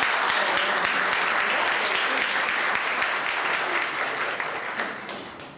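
An audience applauding, with dense steady clapping that fades away near the end.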